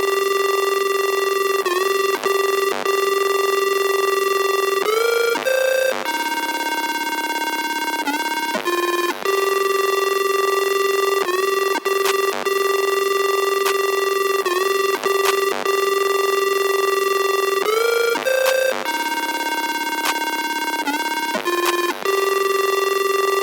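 Electronic music: a held synthesizer tone with many overtones that steps to a new pitch every few seconds, with short clicks between notes and no bass. The phrase repeats about every 13 seconds.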